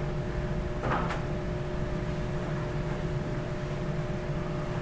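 Steady low hum of room tone with a faint steady tone through it, and one brief soft sound about a second in.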